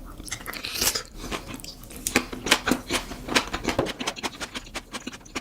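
Close-miked crunching as a person bites into and chews crunchy food, many quick irregular crunches.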